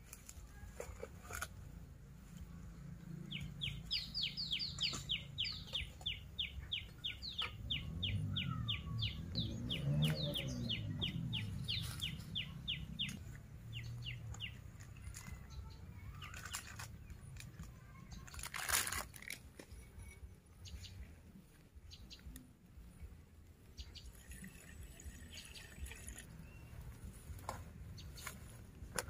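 A bird calling a long run of short, quick chirps at about three or four a second for some ten seconds, over a steady low outdoor rumble that swells and fades in the middle. A brief sharp rustle or knock comes about two-thirds of the way through.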